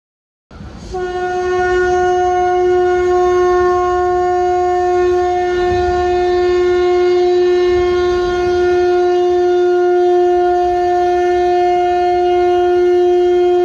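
A conch shell (shankh) blown in one long, steady held note that starts about half a second in.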